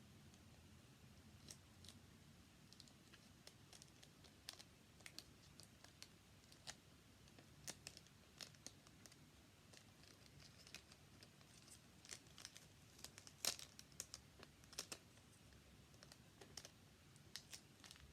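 Faint, irregular clicks and crinkles of hands working cardboard and tape while crafting, with one sharper click about thirteen seconds in.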